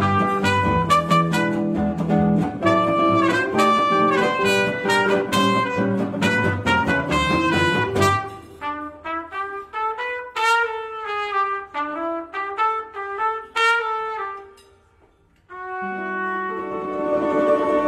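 Gypsy jazz band of trumpet, acoustic guitars and double bass playing. About eight seconds in the band drops away and the trumpet plays a run of notes alone. After a short pause the group comes back in on one long held chord with the trumpet on top.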